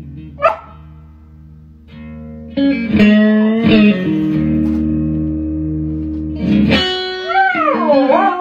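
Electric guitar played through an amplifier, blues-style licks with bent notes, quiet for the first couple of seconds and then loud from about a third of the way in. Near the end a wavering tone dips and rises in pitch, which fits a dog howling along with the guitar.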